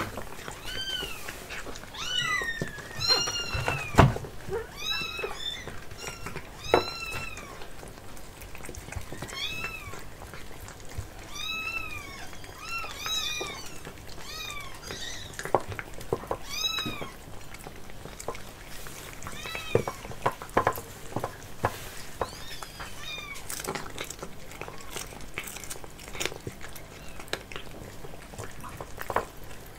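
Domestic cats giving a long run of short meows, each rising then falling in pitch, thickest in the first half and thinning out after about seventeen seconds. Under them, scattered clicks and smacks of cats eating from a tray, with one sharp knock about four seconds in.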